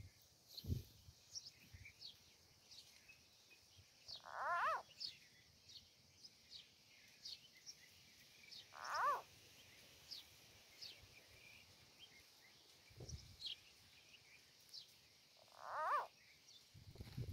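A frog held in a snake's jaws giving distress cries: three short, wailing calls, several seconds apart. Faint high chirps go on in the background.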